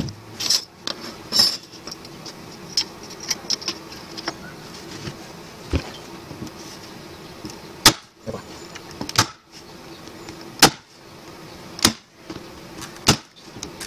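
Small electric drill motor buzzing steadily as it fastens a metal frame-rest strip into a wooden beehive box, with sharp clicks every second or so in the second half.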